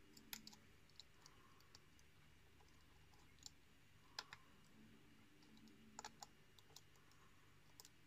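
Faint, scattered small metallic clicks of a dimple pick working the pins of a brass euro cylinder lock under tension, with the core in a false set.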